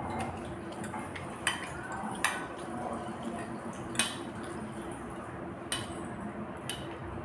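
Metal spoon and fork clinking and scraping against a ceramic plate while mixing noodles: about five sharp clinks, the loudest about four seconds in.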